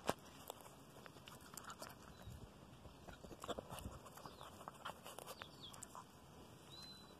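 Small dog tearing and chewing grass: faint, irregular crisp clicks and crunches.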